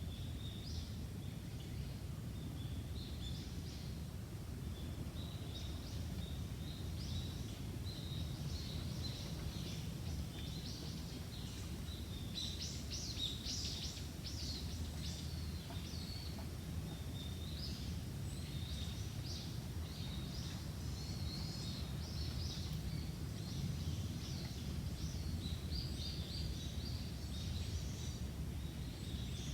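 Small birds chirping and twittering in a bamboo forest, busiest about halfway through, over a steady low rumble.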